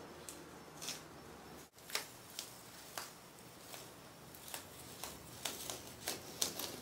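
Blue painter's tape being peeled slowly off a painted wall, giving short, irregular crackles that come closer together near the end.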